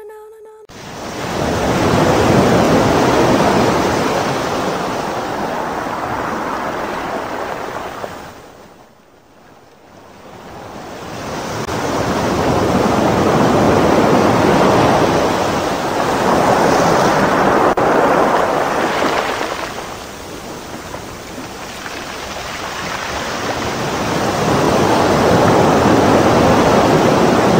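Ocean surf: waves washing in and drawing back, rising and falling in slow swells every several seconds, nearly dying away about nine seconds in.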